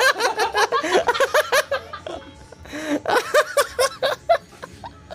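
High-pitched laughter in quick repeated bursts, in two bouts: one at the start and another about three seconds in.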